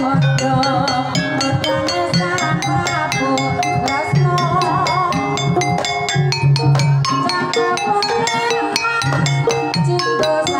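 Javanese gamelan playing a Banyumasan tayub piece: bonang kettle gongs struck in quick ringing patterns, with deeper gong tones swelling at intervals and a female sinden's voice weaving a wavering melody over the ensemble.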